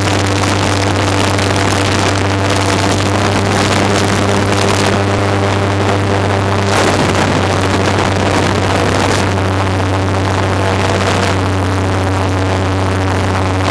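Airboat's engine and air propeller running steadily at cruising speed: a loud, constant low drone with a rush of air over it.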